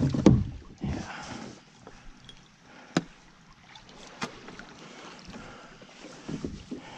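Kayak paddle strokes splashing in the water, with the loudest splash right at the start. Two sharp knocks come about three and four seconds in.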